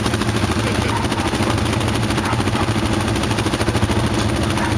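Several ATV engines idling together: a steady, rapidly pulsing low rumble.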